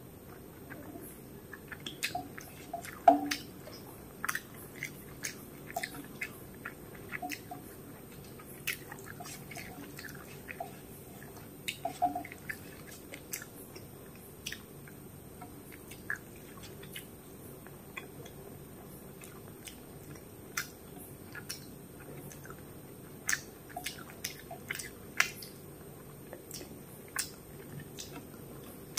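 A person chewing rice and curry eaten by hand, close to the microphone: irregular wet clicks and smacks from the mouth, loudest about three seconds in and again about twelve seconds in.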